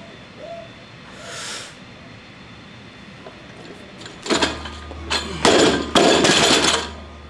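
Loaded barbell with Eleiko rubber bumper plates dropped from a lift onto the gym floor, crashing down and bouncing several times, the loudest impacts near the end.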